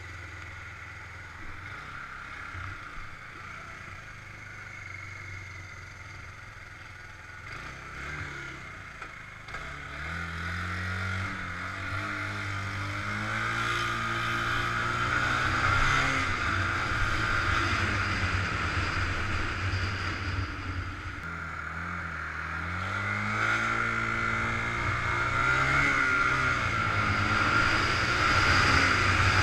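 Suzuki GZ 250 motorcycle's single-cylinder four-stroke engine idling for about the first ten seconds, then pulling away, its pitch climbing and dropping several times as it accelerates through the gears and eases off. Wind rush builds with speed.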